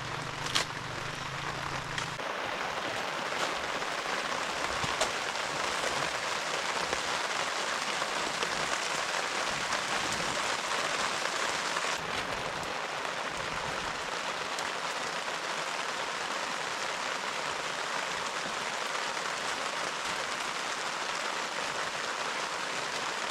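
Steady heavy rain falling, with a few sharp ticks in the first second.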